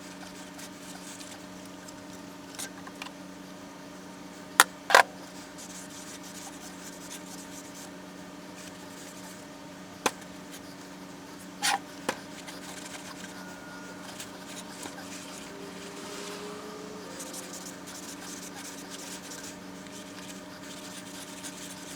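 A steady electrical hum with a few sharp knocks and clicks over it; the loudest two come close together about five seconds in, and a couple more follow near ten and twelve seconds.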